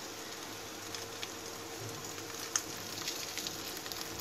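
Oil sizzling steadily around a thin maida roti shallow-frying in a pan, with scattered crackles and a sharper pop about two and a half seconds in.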